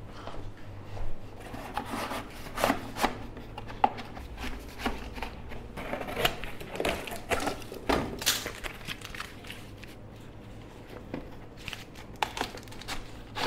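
Cardboard being torn and crumpled by hand and stuffed down into a plant pot to wedge an artificial tree so it stops wobbling: a run of irregular crinkles, rips and scrapes.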